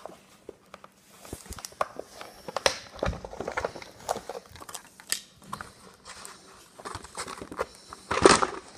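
Cardboard toy box and its plastic packaging being handled and opened: irregular crinkling, clicks and scrapes, with a louder rustling burst near the end.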